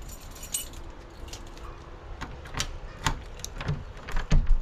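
Sharp clicks of a hand pressing the buttons of a brass electronic keypad deadbolt on a front door, followed near the end by heavier knocks as the lock and door handle work.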